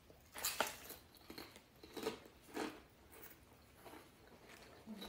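Chips being chewed with the mouth close to the microphone: a run of irregular crunches.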